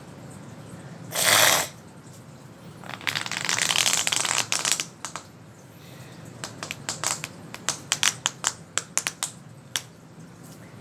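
A plastic fidget toy being handled and worked: a short loud burst of noise about a second in, a stretch of dense crackling, then a run of quick, sharp clicks.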